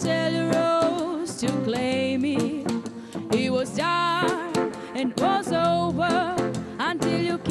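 Live band performing a song: a woman singing lead, with a wavering held voice, over electric guitar and steady percussion hits.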